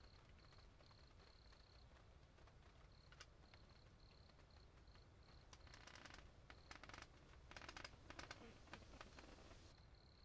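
Faint insect chirping outdoors: a high, thin note repeated about three times a second. From about five and a half seconds in to near the end, a spell of dry crackling rustles is the loudest sound and masks the chirping.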